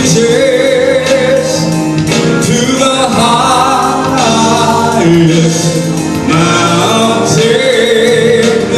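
A man singing a slow gospel song into a handheld microphone, holding long notes with vibrato, with music behind his voice.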